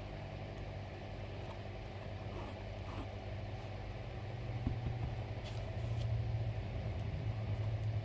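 A steady low mechanical hum, like a motor running, a little louder from about halfway through, with a couple of faint light clicks.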